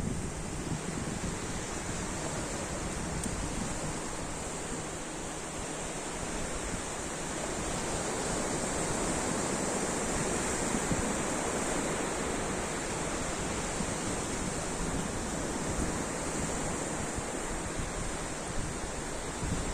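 Ocean surf washing in a continuous hiss, swelling gradually to a peak around the middle and easing off again.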